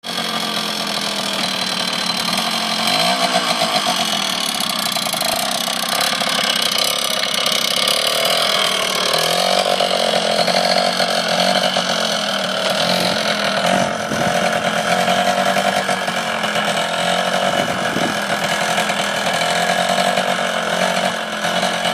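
Yamaha TY80 trials motorcycle's small two-stroke single-cylinder engine running as the bike is ridden slowly. The engine pitch rises and falls a little with the throttle.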